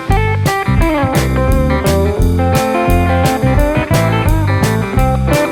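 Background music: a blues-rock track with electric slide guitar over a steady drum beat and bass.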